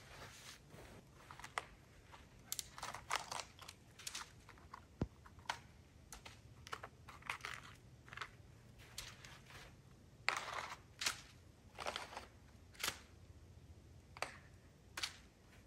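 Footsteps crunching through deep snow, an uneven step roughly every second.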